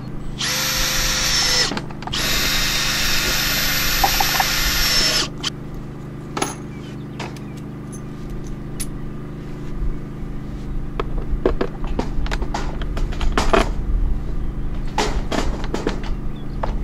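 Cordless drill running in two bursts, a short one of about a second and then a longer one of about three seconds, with a steady motor whine. After it come scattered clicks and knocks from handling the plastic cases and hardware.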